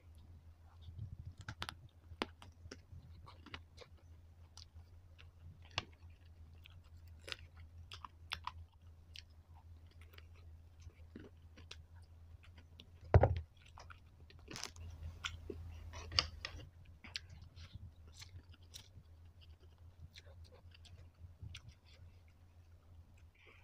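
Close-up eating sounds: chewing and crunching on crispy fried chicken, with many small sharp clicks of the mouth and utensils over a steady low hum. A single loud knock comes about 13 seconds in.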